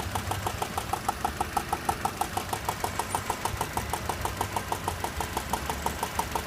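Car engine idling with a steady, rapid metallic ticking or knocking, about seven ticks a second, over a low hum.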